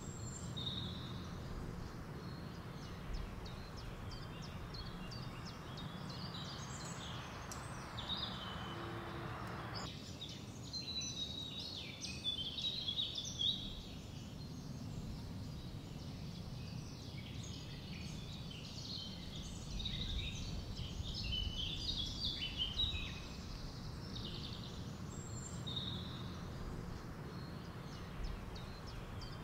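Several small birds chirping and singing, many short high calls and trills overlapping, over a steady low background noise.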